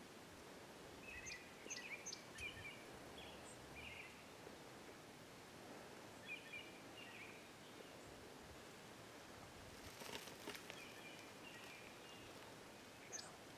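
Quiet outdoor ambience with faint, scattered bird chirps in two short clusters, and a brief rustle about ten seconds in.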